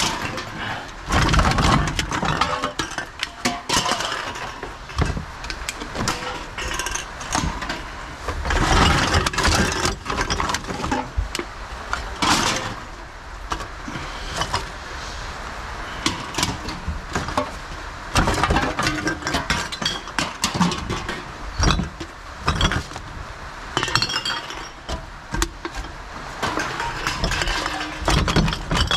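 Empty drink cans and glass bottles clinking and clattering as they are rummaged through and pulled out of a bin, with irregular knocks and a few louder thumps.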